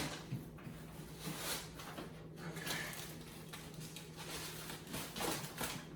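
Quiet handling noises as a heavy metal wing mounting frame is moved and put away: a short knock or rustle at the start, then a few faint scattered knocks and rustles over a low steady hum.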